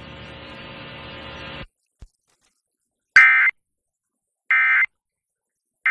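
Emergency Alert System end-of-message data bursts: three short, harsh digital tone bursts about a second apart, the last one just starting, which signal the end of the broadcast tornado warning. Before them, a faint steady hum cuts off about a second and a half in.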